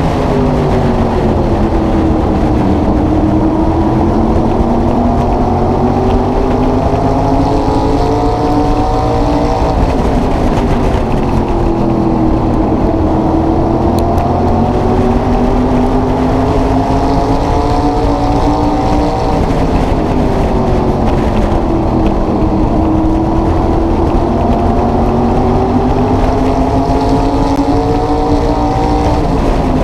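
SK Modified race car's carbureted small-block V8 heard onboard at racing speed, its pitch climbing along each straight and dropping as the driver lifts into each turn, about every nine to ten seconds.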